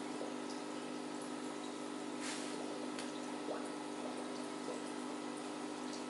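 Aquarium pump running with a steady hum under an even trickle of water, with small clicks and one brief louder splash about two seconds in.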